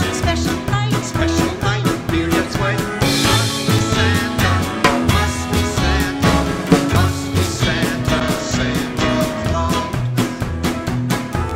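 Small band playing an upbeat Christmas song on accordion, electric guitar, electric bass and drum kit, with a steady bouncing beat. A cymbal crash comes about three seconds in.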